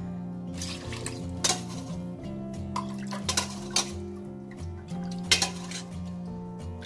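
Steel ladle clinking against a stainless stockpot, about five sharp knocks, as chicken broth is scooped out, over steady background music.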